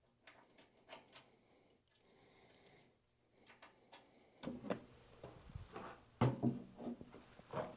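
Hand tools and hardware handled on a metal workbench: scattered light clicks and clinks, then from about halfway through a run of louder knocks and thuds.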